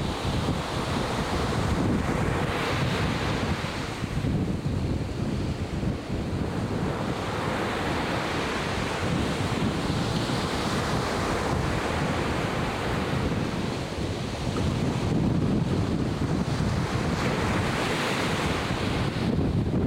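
Atlantic Ocean surf breaking and washing in swells a few seconds apart, with wind buffeting the microphone as a low rumble.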